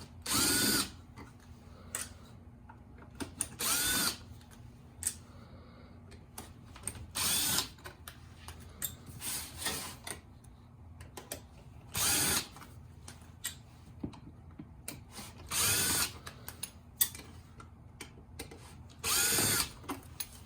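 Electric screwdriver backing out small screws: six short whirring runs a few seconds apart, each rising and falling in pitch, with light clicks of screws and parts being handled between them.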